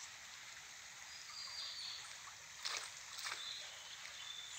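Shallow stream water running steadily, with two short splashes a little past halfway as a wet cast net is gathered up out of the water.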